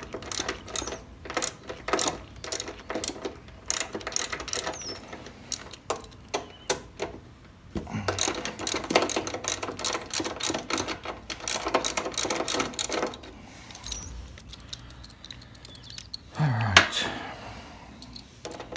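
A 1/4-inch drive socket ratchet clicking in quick runs as a bolt holding the starter solenoid to the mower frame is backed out, with metal tool clinks between the runs.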